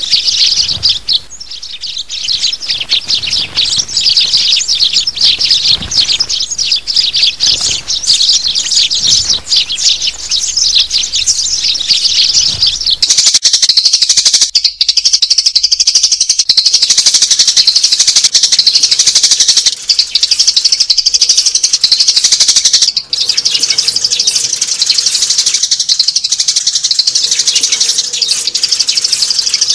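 Adult sparrows chirping in a dense chorus of many overlapping high calls, becoming a more continuous chatter about halfway through.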